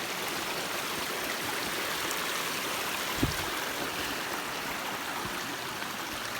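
Mountain stream rushing steadily over rocks at a trail crossing, with a single dull thump about three seconds in.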